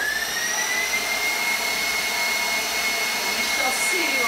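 KitchenAid stand mixer motor driving the pasta press attachment as it extrudes dough, running at a higher speed. Its whine rises in pitch over the first second and a half and then holds steady.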